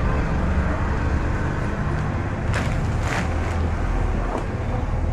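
Clear plastic wrapping crinkling in short bursts as jerseys are handled, over a steady low rumble.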